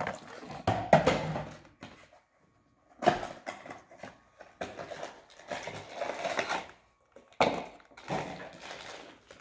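Crinkling and rustling of a Funko Mystery Minis blind box and its foil bag being opened by hand, in irregular bursts with short pauses.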